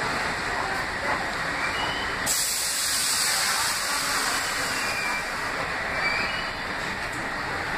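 Subway train pulling into the platform and coming to a stop. About two seconds in, a sudden loud hiss of air from the train starts and runs on, with a few faint short squeals.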